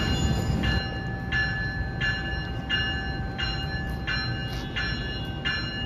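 NJ Transit multilevel train's bell ringing in even strokes, about one and a half a second, over the low rumble of the slow-rolling train. A steady high squeal runs under the bell until near the end.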